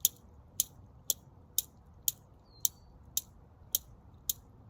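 Steady, evenly spaced ticking, about two sharp ticks a second, with one brief faint high chirp about halfway through.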